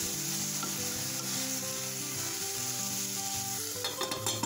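Chopped chayote sizzling in hot oil in a steel saucepan on the gas burner, a steady hiss. Near the end a metal lid clatters with a few quick clinks as it is set on the pot.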